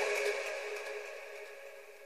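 Electronic background music ending, its last sustained chord fading away.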